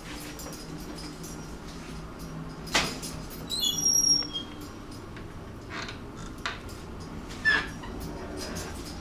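A sharp knock, then a brief cluster of short high-pitched squeaks about a second later, followed by a few softer knocks, over a faint low hum.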